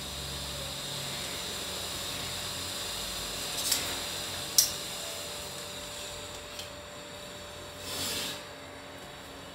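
A metal telescopic drawer channel being handled against a stainless-steel wire basket while it is lined up for fitting: a few sharp metal clicks around the middle, one of them loudest, then a short scrape near the end, over a steady background hiss.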